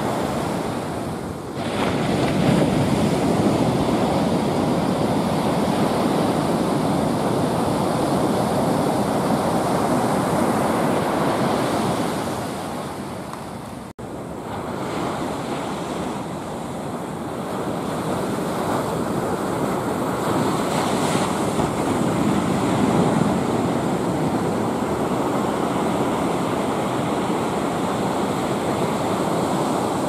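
Ocean surf breaking and washing up a sandy beach, a continuous rushing wash that swells and eases as the waves come in, with a brief dropout about halfway through.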